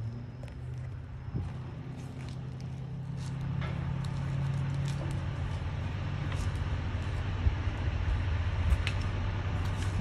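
An engine running steadily with a low hum that grows gradually louder, with a few faint clicks and taps.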